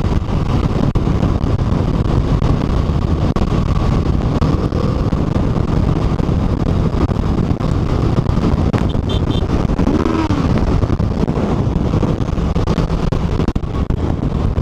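Steady wind rush on the microphone over a motorcycle running at about 90 km/h, with the engine and tyres on a wet road underneath.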